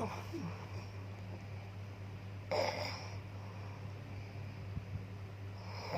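A sleeping pet snoring: one noisy snoring breath about two and a half seconds in, over a steady low hum.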